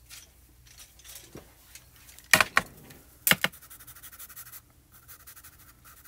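Pastel chalk pencil scratching lightly across cardstock while shading, with two sharp clacks about a second apart a little over two seconds in.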